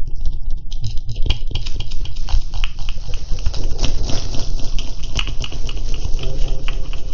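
Cat litter being scooped: gritty granules rattling and crunching in a stream of small clicks, over a low rubbing rumble.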